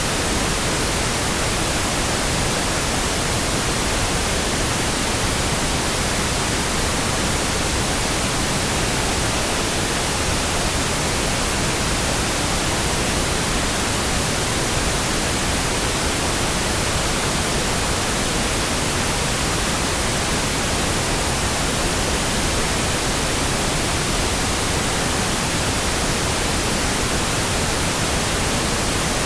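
Steady generated noise, billed as pink noise for sleep: an even, unchanging hiss with no breaks or events.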